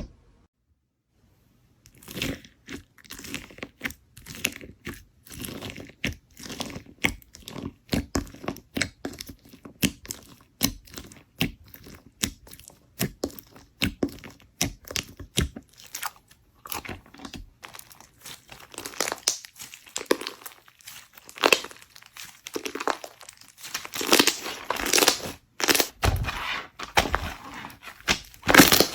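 Slime being worked by hand, giving fast crackling clicks and pops that start about two seconds in. In the second half the crackles come in longer, louder stretches.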